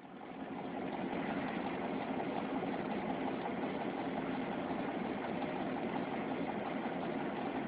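Heavy dump truck's diesel engine running steadily as the hydraulic hoist raises the loaded bed. The sound fades in over about the first second, then holds even.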